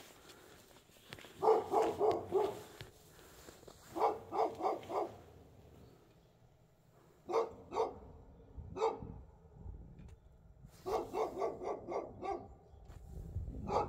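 A dog barking in quick runs of two to six barks, with pauses of a second or two between the runs.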